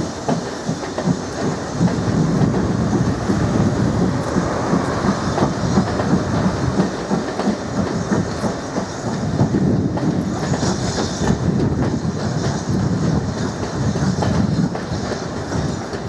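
A train of Royal Mail railway vans rolling past close by, their wheels clattering in a steady clickety-clack over the rail joints. The sound eases near the end as the last van goes by.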